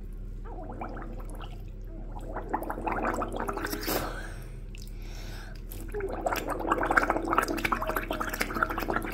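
A person making gargling, bubbling noises with the mouth, imitating bubbles under water, in two spells, the second one longer.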